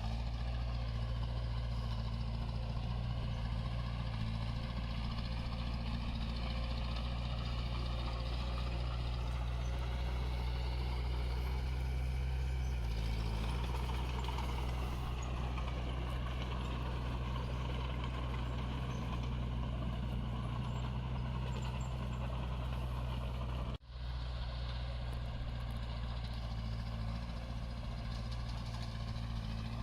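Diesel engine of a Komatsu D21 bulldozer running steadily, its tone shifting a little about halfway, with a sudden momentary drop-out near the end.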